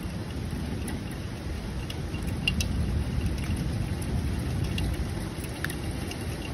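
Thunderstorm rain falling steadily, over a low continuous rumble, with a few sharp ticks about two and a half and five and a half seconds in.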